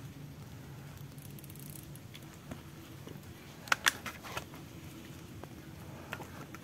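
A quick cluster of sharp clicks and knocks a little past halfway from handling a Saiga-410 shotgun at the receiver and sight, over a low steady background.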